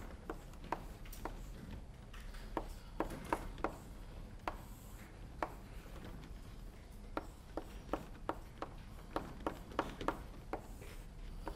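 Chalk writing on a blackboard: a string of irregular, short sharp taps and strokes as a formula is written out.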